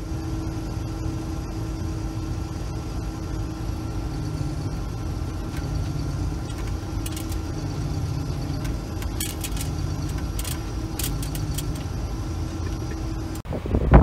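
Combine harvester running steadily, heard from its cab: an even low engine hum with constant whining tones. A few light rattles come in the middle.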